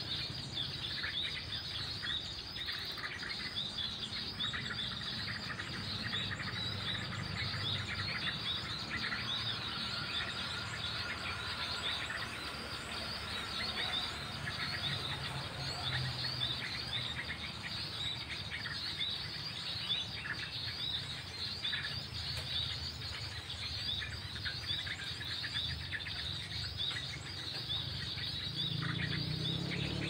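Small birds chirping and calling in a dense, continuous stream over a steady high insect drone.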